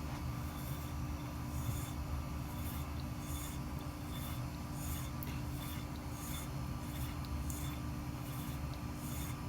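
Koraat straight razor being honed on a wet half-micron CBN nano plate: the blade swishes across the plate in regular strokes, about one every three-quarters of a second, over a steady low hum.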